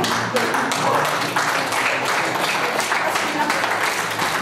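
Audience clapping in a rapid, steady patter, with the chatter of voices underneath.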